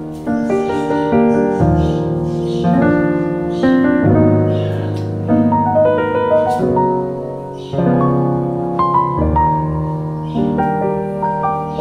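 Background piano music, with chords and notes changing about every second.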